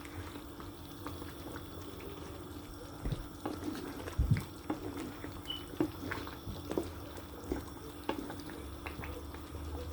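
Chicken wings simmering in a flour-thickened Coca-Cola sauce in a pan, the gravy bubbling with scattered soft pops, over a steady low hum.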